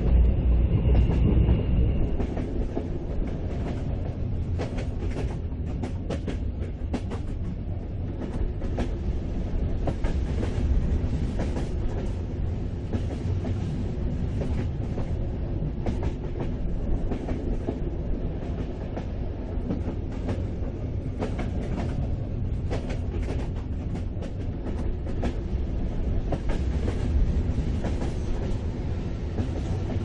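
Mugunghwa passenger train running at speed, heard from inside the carriage: a steady low rumble with irregular clicks of the wheels over the rails. A faint thin whine sounds during the first couple of seconds.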